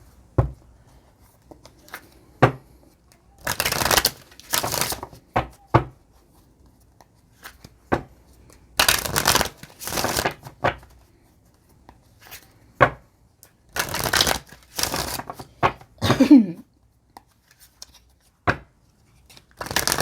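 A deck of divination cards being shuffled by hand, in several bursts of about a second each, with sharp taps and clicks of the cards in between.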